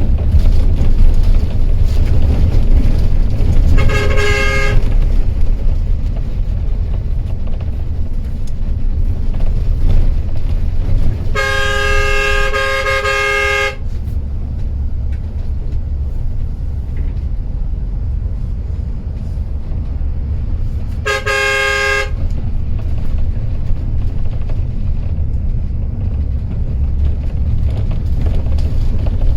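Steady low engine and road rumble of a moving intercity coach, with a multi-tone horn sounded three times: a short blast about four seconds in, a longer blast of about two seconds near the middle, and another short blast about three-quarters of the way through.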